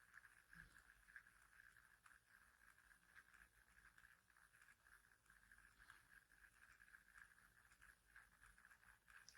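Near silence: quiet bedroom room tone with a faint steady high-pitched hum.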